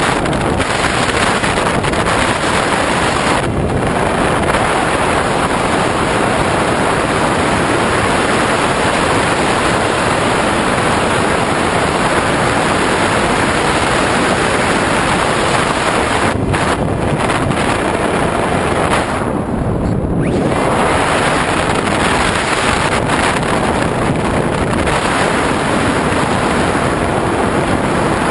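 Steady rush of airflow over the onboard camera's microphone on an RC model aircraft in flight, with no clear motor tone. The hiss briefly thins three times, about 3.5, 16.5 and 20 seconds in.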